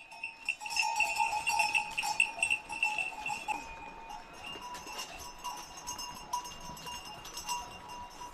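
Livestock bells jangling continuously, with many small clinks and a steady ringing that wavers in pitch.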